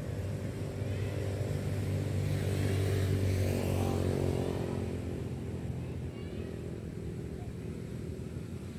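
A motor engine running with a low steady hum. It grows louder to a peak about three seconds in, then fades away, like a vehicle passing by.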